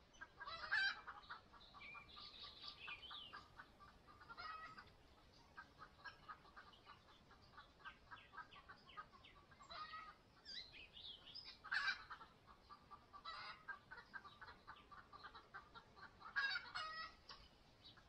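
Nightingales calling at the nest: a steady run of short ticks, about four a second, with a louder harsh call every few seconds and some brief high chirps.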